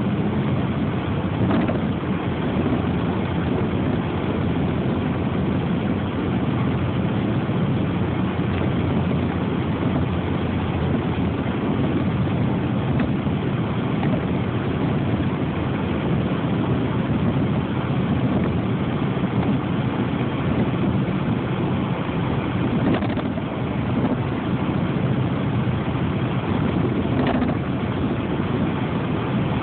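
Steady vehicle running noise with no pitch changes, and a few faint clicks.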